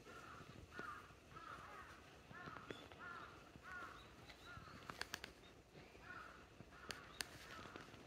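A crow cawing faintly: a series of short, harsh calls about two a second, breaking off around the middle and resuming near the end. A few sharp clicks sound about five and seven seconds in.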